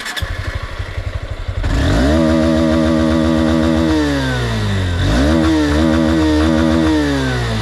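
Engine idling, then revved twice and held at high revs for about two seconds each time, each rev falling back toward idle. The owner says its piston rings are worn, and it is smoking heavily after being started.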